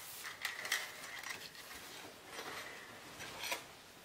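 Faint clicks and light rustling of a clothes hanger and a fur coat being handled as the coat is hung up, a few scattered clicks with a couple near the end.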